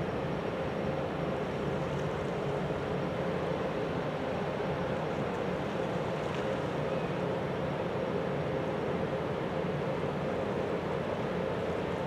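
Steady engine drone with a constant hum, unchanging throughout.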